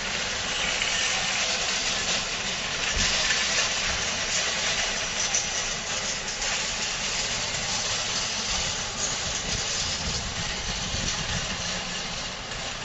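Steady outdoor background noise of a store-front parking lot: an even hiss with a low rumble underneath, from traffic and the open air.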